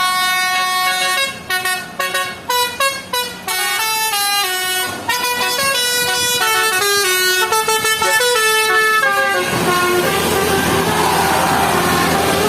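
Bus 'telolet' Basuri multi-tone horn playing a quick tune of stepped notes, in short blasts at first and then continuously, for about nine seconds. Then a loud rushing noise takes over, with one lower horn note held under it.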